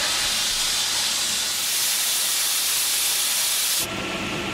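Steam escaping under pressure in a loud, steady hiss that cuts off abruptly near the end. A quieter steady running of machinery with a faint thin whine is left underneath.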